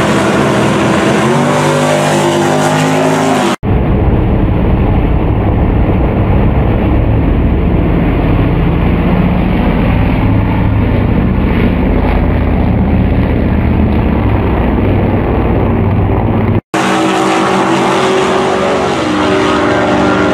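Drag race car engines at full throttle, in clips cut together: an engine revving with shifting pitch at the start, then a deep, steady, muffled engine noise during a hard launch, then another car's engine accelerating down the strip. The sound changes abruptly twice, about three and a half seconds in and near sixteen and a half seconds.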